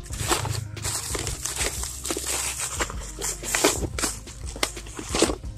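Clear plastic packaging crinkling and rustling as it is handled by hand inside a cardboard box.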